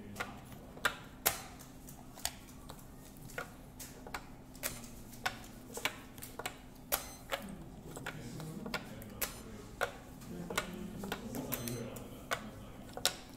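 Othello discs clicking down onto a plastic board and being flipped over, with taps on a digital game clock's buttons: an irregular run of sharp clicks, about one to two a second, as moves are made at blitz pace.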